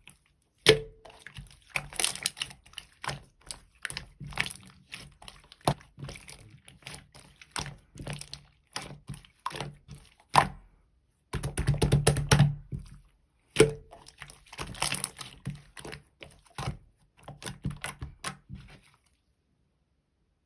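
Clear slime being squished and pressed by hand, giving quick runs of crackling clicks and pops with a few louder snaps; it stops shortly before the end.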